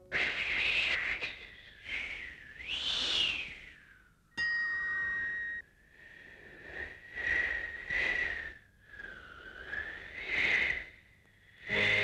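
Cartoon wind sound effect: gusts of whistling wind swell and fade again and again, sweeping up and down in pitch. About four seconds in, a steady high whistle starts suddenly and holds for about a second.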